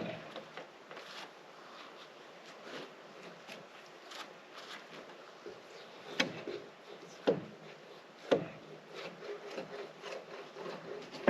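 Irregular knocks and scraping as a log is handled and clamped on a portable sawmill, with three louder knocks in the second half.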